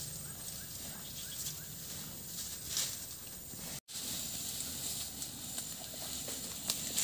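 Cattle grazing in thick undergrowth: scattered crackles of rustling and torn plants over a steady, high-pitched insect drone, with a few faint short chirps in the first couple of seconds. The sound drops out for an instant just past halfway.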